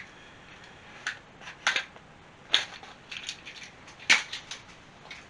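A printed paper sheet being handled and unfolded: a series of short crackles and rustles with pauses between, the sharpest a little over a second and a half in and about four seconds in.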